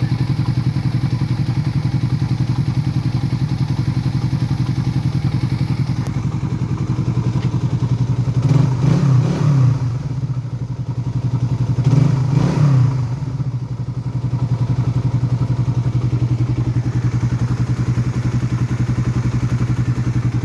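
Suzuki Raider 150 Fi single-cylinder four-stroke engine idling steadily with a ticking, the 'tagitik' the owner asks about after replacing the connecting rod and working on the cylinder head. The throttle is blipped twice, about eight and twelve seconds in, each rev rising and dropping back to idle.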